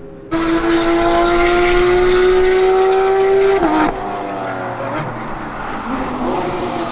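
Porsche 991 GT3 RS's naturally aspirated flat-six pulling hard through one gear, its pitch climbing steadily. About three and a half seconds in the revs drop sharply and the engine runs on at lower, wavering revs.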